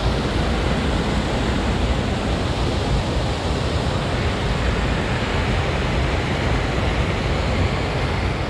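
Wind rushing over the microphone of a bicycle ridden at speed: a steady, loud rushing with a strong, unsteady low rumble.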